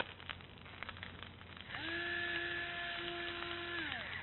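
Electric pepper mill grinding for about two seconds: a small motor whine that rises in pitch as it starts and sinks as it stops, over the rasp of peppercorns being ground.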